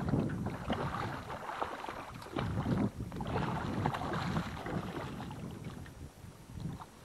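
Wind rushing over the microphone and small waves slapping against a boat hull, with scattered light knocks and clicks.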